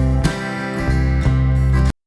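Background music with strummed acoustic guitar, cutting off abruptly just before the end.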